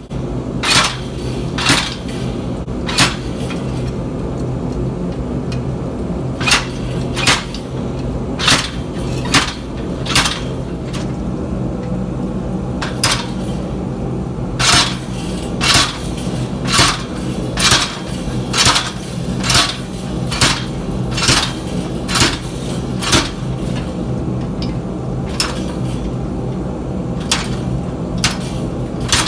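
Hammer blows driving a hot-cut chisel through hot steel on the anvil, over a copper plate that protects the cutting edge as it pierces through. The sharp metal strikes come irregularly, often in quick pairs or runs of several, over a steady low hum.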